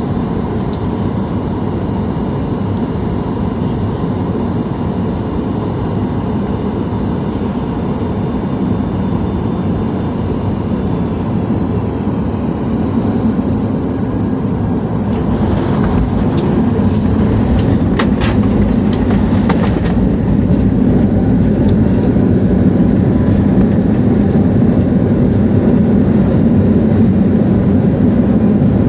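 Cabin noise of a Boeing 737 MAX on final approach: the steady rush of its CFM LEAP-1B engines and airflow, with a faint steady whine. About halfway through, the jet touches down with a burst of rumble and a few sharp rattles, and then the engine roar grows louder and stays up through the rollout.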